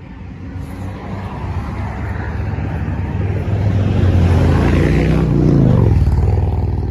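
A motor vehicle driving past: its noise builds over several seconds, peaks about four to six seconds in, and its engine note drops in pitch as it goes by.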